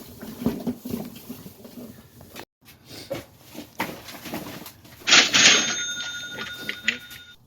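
Scattered clicks and rustling, then about five seconds in a loud, bright bell-like ring with several steady tones that lasts about two seconds and cuts off sharply.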